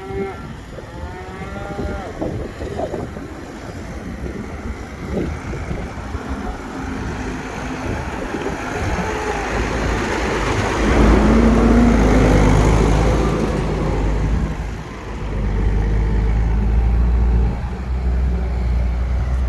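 A low, steady engine hum, loudest in the second half with a short dip partway through, with cattle mooing near the start.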